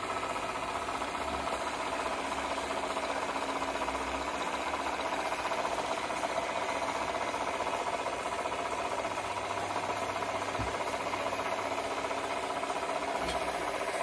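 Small model steam engine in a model launch, running steadily off its Kingdon boiler with an even mechanical rattle.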